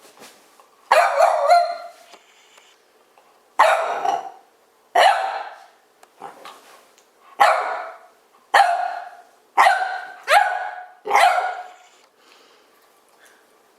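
A dog barking in play, about nine sharp single barks at uneven intervals, a second or two apart.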